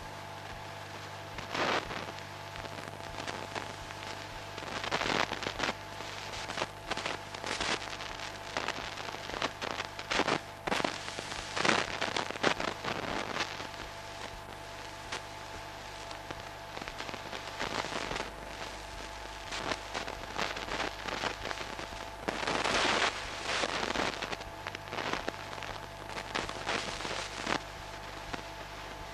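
Irregular crackling and popping in clusters over a steady electrical hum, the kind of noise found on the soundtrack of an old film transfer.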